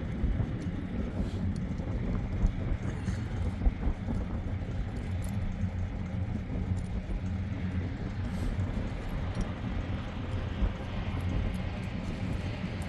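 A vehicle engine running steadily, a low even hum with a few faint clicks over it.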